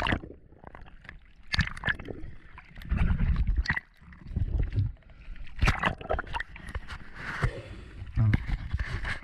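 Underwater sound of a freediver ascending: bubbles, water rushing over the housing and irregular clicks and knocks of the spear gear, with low rumbling stretches. Near the end the camera breaks the surface into sloshing waves and a diver breathing out.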